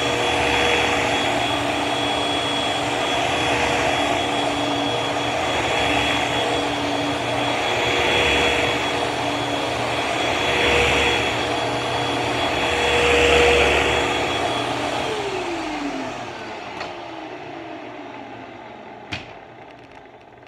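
A 2006 Hoover WindTunnel 2 bagless upright vacuum cleaner running, its sound swelling and easing every two to three seconds. About 15 seconds in, the motor winds down with a falling whine, and a single click comes near the end.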